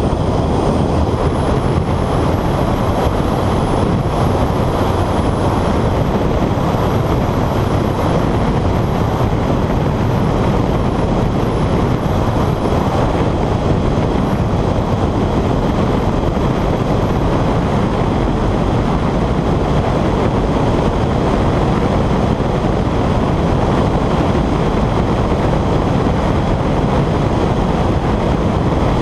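Honda CR-X driven hard on a track lap: a steady rush of wind and road noise with the engine running underneath, picked up by a camera mounted on the outside of the car.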